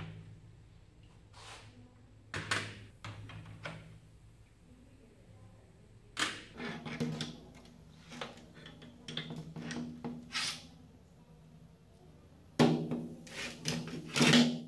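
Metal tongs and the steel pieces of an old meat cleaver knocking and clattering against sheet-metal trays as the parts are lifted out of a soaking bath and set down: a string of separate sharp clanks, the loudest pair near the end.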